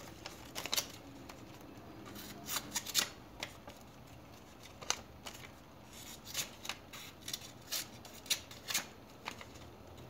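A sheet of paper rustling and crackling as the blade of a freshly sharpened Victorinox keychain knife slices through it in a series of short, crisp cuts, a test of the new edge.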